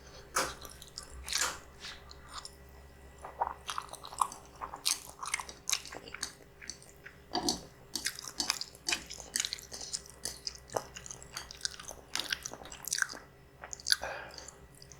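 Close-miked chewing of spicy instant noodles: wet, irregular mouth clicks and smacks, with a few sharper, louder ones.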